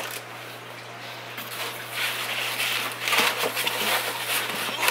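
Foam packing inserts and cardboard rubbing and scraping as they are pulled out of a box, in rustling bursts that get louder about two seconds in.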